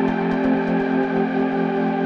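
Background music: sustained chords held over a fast, even low pulse.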